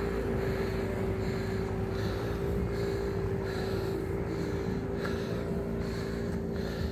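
Motorboat engine running steadily at a constant pitch.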